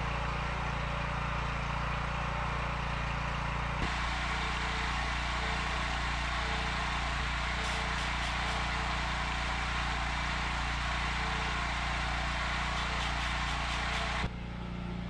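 Portable gasoline generator running steadily, powering an electric chainsaw-chain sharpener whose grinding wheel is working the chain. There are a few short spells of harsher grinding on the teeth about halfway through and again near the end.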